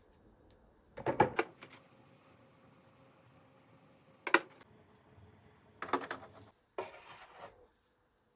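Four short bursts of knocking and clattering from objects being handled and set down: about a second in, just past four seconds, near six seconds, and a longer rattle near seven seconds.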